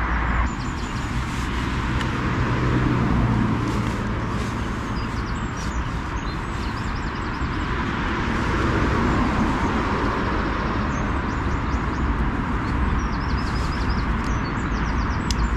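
Steady road traffic from a nearby main road, a continuous wash of tyre and engine noise that swells gently now and then as vehicles pass. Faint short high chirps come and go over it.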